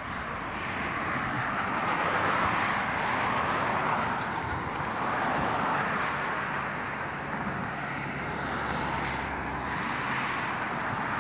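Steady outdoor wash of road-traffic noise that slowly swells and fades.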